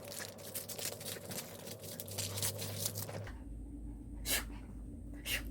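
Fast, scratchy rustling, like a dog's claws digging at fabric, stops abruptly about three seconds in. Two brief sharp sounds follow.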